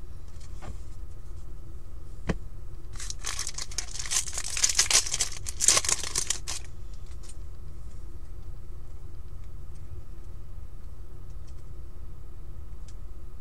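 Foil trading-card pack being torn open by hand, its wrapper crinkling. A burst of tearing and crinkling starts about three seconds in and stops near the middle.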